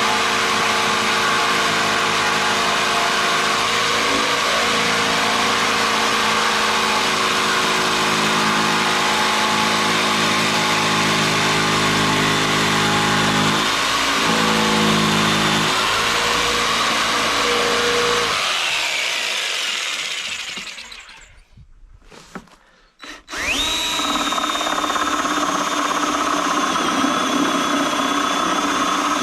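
Electric power tool running steadily with a high whine, winding down to a stop about two-thirds of the way through, then after a brief pause spinning back up and running steadily again.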